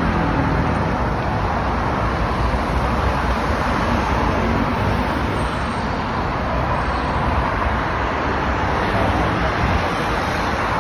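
Steady road traffic noise from a busy multi-lane highway, many cars and buses passing at speed.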